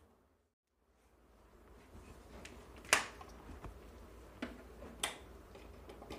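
Several sharp clicks and taps from an opened LED bulb being handled. The loudest comes about three seconds in, with lighter ones around it.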